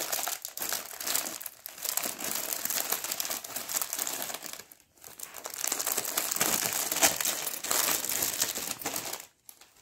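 Clear plastic wrapper of a pack of cleaning cloths crinkling and rustling as hands open it and pull the cloths out. There is a short pause about five seconds in, and the crinkling stops just before the end.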